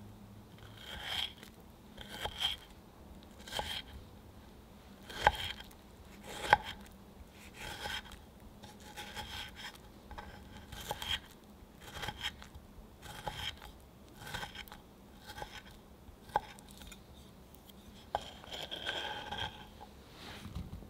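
A knife slicing and dicing fresh strawberries on a wooden cutting board: a soft cut and scrape about once a second, with the blade knocking on the board, a few knocks sharper than the rest.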